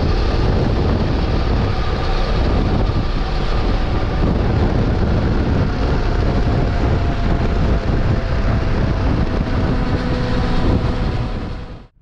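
Onboard sound of a motorcycle at road speed: a loud, steady rush of wind on the camera microphone, with the engine running underneath. It cuts off suddenly near the end.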